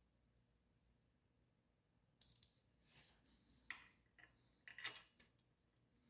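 Near silence broken by a few faint, short clicks and light taps, the first about two seconds in and a small cluster near the end.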